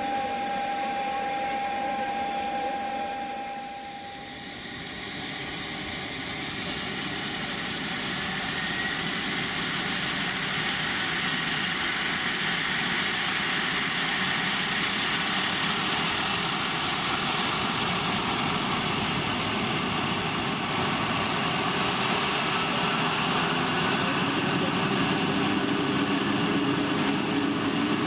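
Piper PA-46-500TP Meridian's Pratt & Whitney PT6A turboprop starting up: a high turbine whine rises slowly in pitch as the engine spools up, the sound growing louder, with the propeller's lower drone coming in near the end. The first few seconds hold a different steady whine that fades out about four seconds in.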